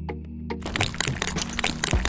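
Background music with a steady low tone, overlaid by many quick, sharp clicks and cracks.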